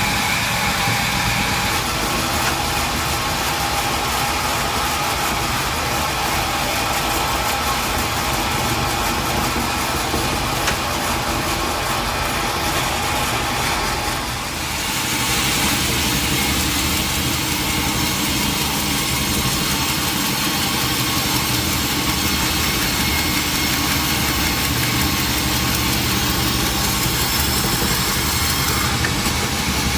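Sawmill machinery running steadily, an engine-driven hum and whir, with a brief dip and a change in tone about halfway through.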